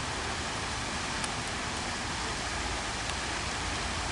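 Steady rushing noise of splashing water, even and unbroken, with no birds or voices standing out.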